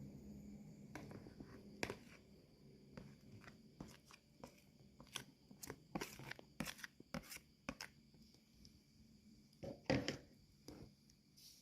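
Faint, irregular crisp clicks and crackles, a few close together at a time, with one louder crackle about ten seconds in.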